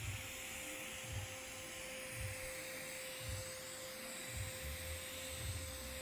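TIG welding arc hissing steadily over a constant electrical hum, with a soft low pulse about once a second.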